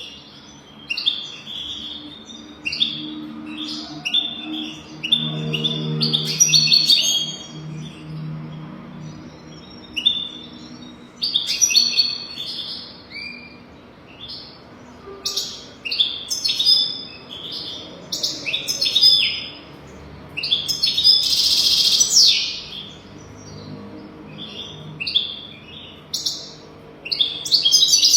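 European goldfinch singing: repeated phrases of quick, high chirps and twitters, separated by short pauses.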